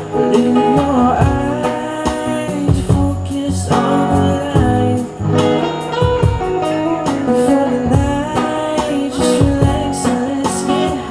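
Live band playing an instrumental passage of a reggae-style song: guitar over a steady drum beat.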